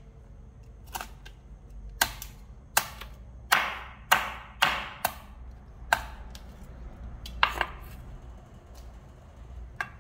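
Knife chopping hard noni fruit: about ten sharp, unevenly spaced blows.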